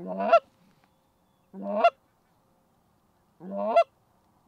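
Three short goose honks, each rising in pitch, spaced a little under two seconds apart.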